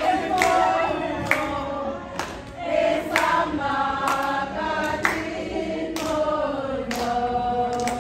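Several voices singing together, with a sharp hit about once a second keeping the beat.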